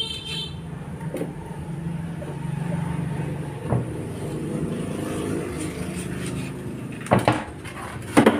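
A motor vehicle engine running in the background, building to its loudest in the middle and then fading away. Two sharp knocks come near the end.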